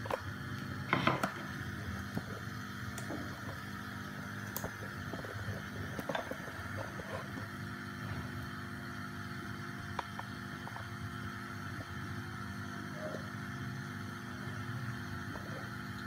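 Steady hiss and hum of a lit gas stove burner heating an empty aluminium karahi, with a brief clatter about a second in.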